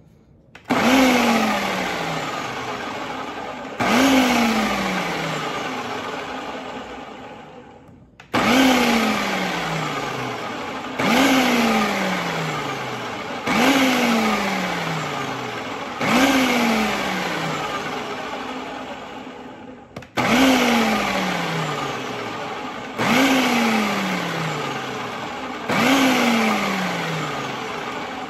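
Food processor pulsed nine times, each pulse a sharp start of the motor's whir that then winds down with falling pitch. Oil is being drizzled in to emulsify Caesar dressing toward a mayonnaise-like consistency.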